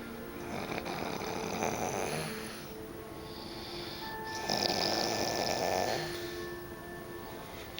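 A woman snoring: two long, rasping snores about four seconds apart, the second louder. Music plays faintly in the background.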